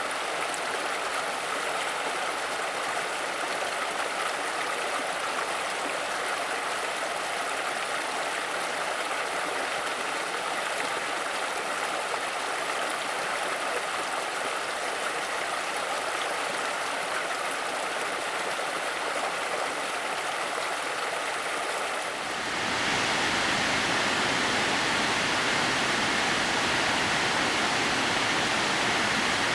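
Steady rush of water from Miroku Falls, a 30 m waterfall running in thin threads down a rock face, and its stream. Near the end the sound changes abruptly to a louder, fuller rush.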